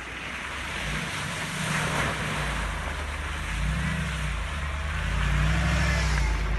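Mercedes-Benz G500's V8 engine pulling through a shallow muddy ford, with water splashing around the wheels. It grows louder as the vehicle drives up to and past.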